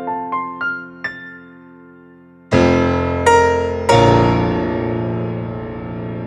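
Synthesizer keyboard with a piano-like sound: a short rising run of single notes, a pause, then three loud chords struck in quick succession and left to ring and fade.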